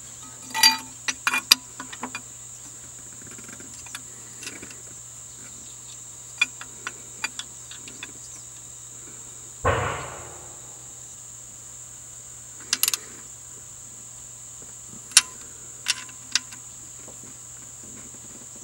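Scattered metallic clicks and clinks of hand tools, nuts and a steel bracket as the bracket is fitted back on the engine and its two 13 mm nuts are started, with one louder clunk about ten seconds in. A steady high-pitched buzz and a low hum run underneath.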